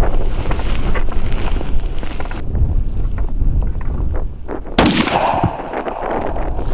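A single shot from an Orsis 120 bolt-action rifle about five seconds in, its report echoing for a second or so, over steady wind buffeting the microphone.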